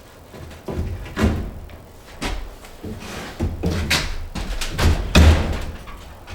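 A run of irregular knocks and thumps, about half a dozen, the loudest a little after five seconds in.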